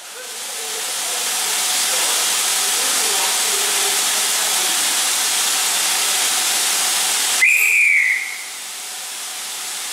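A steam locomotive's steam hisses loudly and steadily, building up over the first couple of seconds. Near the end the guard's whistle gives one short blast, a signal to the driver that the train may depart, and the hiss drops away after it.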